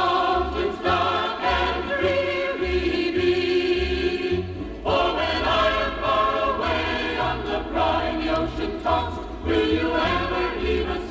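Several voices singing together in a sustained choral song.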